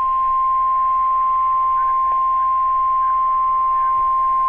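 NOAA Weather Radio 1050 Hz warning alarm tone: a single steady, unwavering beep over faint radio hiss. It is the alert that signals a warning message, here a severe thunderstorm warning, is about to be broadcast.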